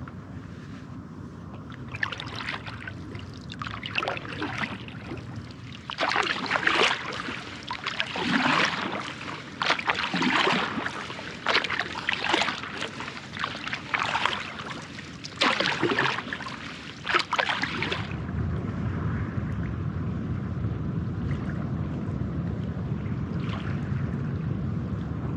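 Stand-up paddle strokes: the paddle blade dipping and pulling through river water with a splash roughly once a second, starting about two seconds in and stopping about eighteen seconds in. After that only a steady low rushing noise remains.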